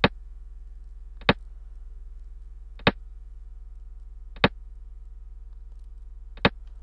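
Five sharp clicks, roughly one every one and a half to two seconds, as moves are played on a computer xiangqi board, over a steady low electrical hum.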